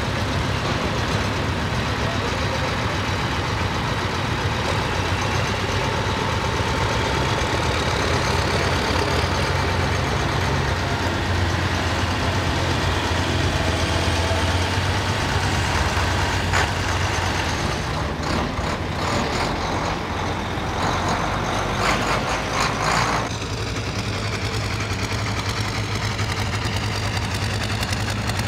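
Heavy tractors and a pickup truck passing slowly one after another, their engines running with a steady low rumble. A spell of loud rattling comes about two-thirds of the way through.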